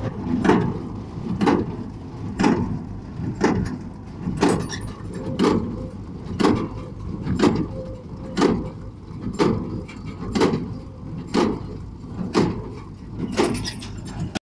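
Tractor-drawn small square baler at work, pressing alfalfa into bales. The baler gives a regular stroke about once a second, the plunger compressing the hay, over the steady running of the machine.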